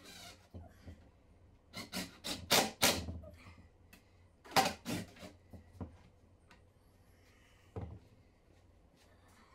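Wooden knocks and rubbing as a wooden cabinet is gripped and shifted on a workbench: a quick run of knocks about two seconds in, another just before five seconds, and a single knock near eight seconds.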